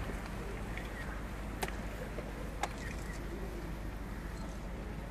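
A full stadium crowd holding a minute's silence: a steady low background hush, with two faint clicks about a second apart in the middle.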